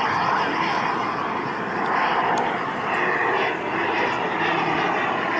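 Turbine engine of a radio-controlled F-16 model jet in flight overhead: a steady rushing jet whine.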